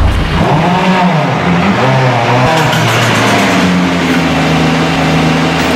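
Rally car engine revving, its pitch swinging up and down quickly in the first half and then holding steadier.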